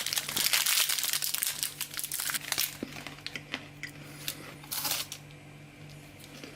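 Plastic wrapper of a Duplo chocolate bar crinkling as it is torn and pulled open by hand: dense crackling for the first two to three seconds, then scattered crinkles with one more burst about five seconds in.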